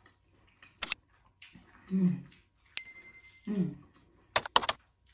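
Eating corn off the cob, with wet mouth clicks and smacks and two short closed-mouth "mm" hums of enjoyment. A short bright chime sounds about three seconds in.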